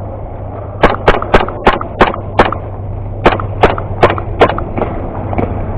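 Airsoft gun firing single shots, about ten sharp cracks in two quick strings, a few per second, over a steady low hum.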